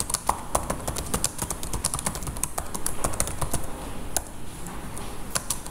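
Computer keyboard being typed on: quick, irregular key clicks, several a second.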